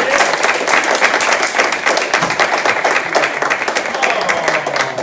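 Audience applauding, a dense patter of many hands clapping that gradually thins and fades toward the end.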